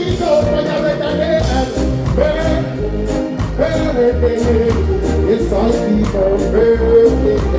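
Live reggae music through a stage PA: a male singer's voice over a heavy bass line and a steady drum beat.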